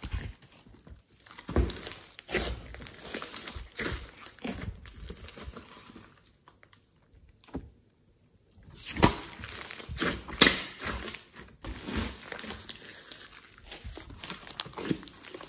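Thick clay-and-glitter slime being stretched, folded and squeezed by hand, giving irregular crackles and pops. There is a quiet pause of about two seconds around the middle.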